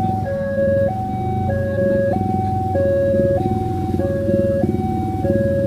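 Railway level crossing warning alarm sounding a two-tone electronic signal, alternating high and low about every 0.6 s, which means a train is approaching or passing and the barriers are down. A steady low rumble runs underneath.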